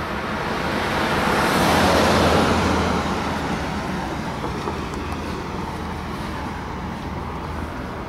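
A vehicle passing by on the road: its tyre and engine noise swells to a peak about two seconds in, then fades slowly over a steady low hum.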